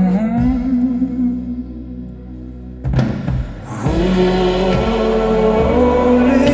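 Recorded song playing between sung lines: sustained held tones thin out, a single sharp percussive hit lands about three seconds in, and the full music swells back in about a second later.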